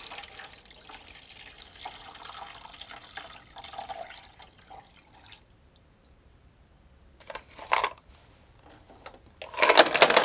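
Water and vinegar solution poured from a glass measuring cup into the tank of a Hornady ultrasonic cleaner, a steady splashing pour that stops about five seconds in. A few metal clinks follow, then near the end a loud metallic clatter as brass cartridge cases go into the cleaner's basket.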